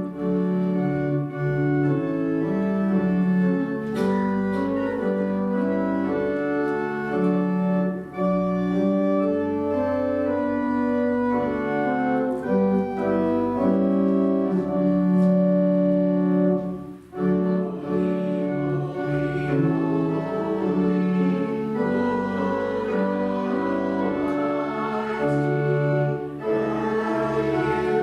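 Organ playing a slow progression of held chords, a hymn introduction, with a brief break between phrases about two-thirds of the way through.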